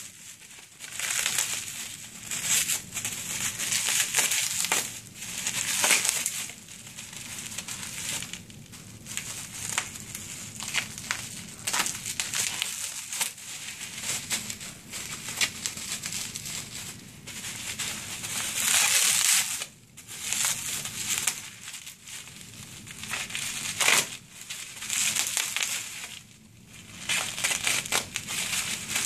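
Plastic bubble wrap crinkling and rustling in irregular bursts as it is pulled off a scooter wheel and crumpled in the hands.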